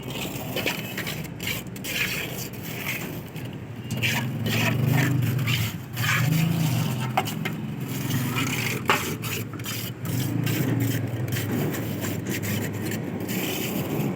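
Irregular scraping with many sharp clicks and knocks, like hand work on a building repair, over a low rumble from about four seconds in.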